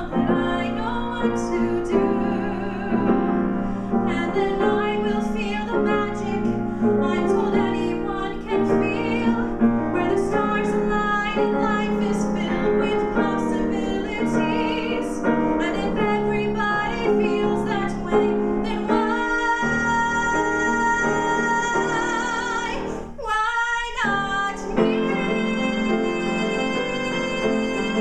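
Woman singing a musical-theatre song with vibrato, accompanied on a grand piano. About two-thirds of the way through she holds one long note, then breaks off briefly before singing on.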